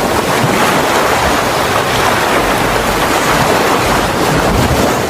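Wind buffeting the microphone: a loud, steady rushing with a low rumble underneath.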